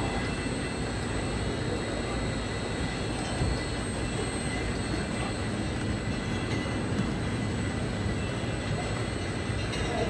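Bottling-line machinery running: a steady mechanical hum and rumble from the rotary filling and capping machine and the bottle conveyor, with a few faint, steady high-pitched whines over it.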